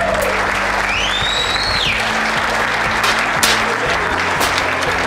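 Audience applauding over background music with a steady beat, with one high whistle rising and then dropping about a second in.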